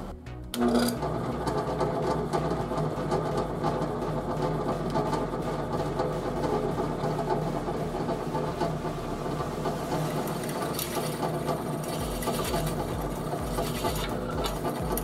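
A small motor starts suddenly about half a second in and runs at an even, steady speed with a rapid mechanical chatter.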